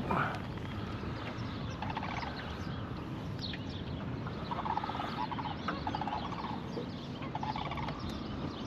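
Short, fast-rattling animal calls, repeated about five times, over a steady low background rumble.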